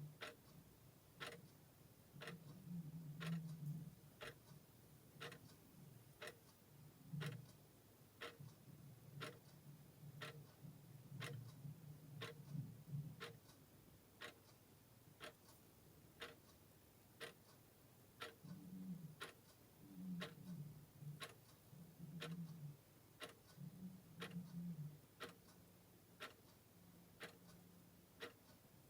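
Clock ticking steadily and faintly, an even tick a little under twice a second. A low hum comes and goes underneath.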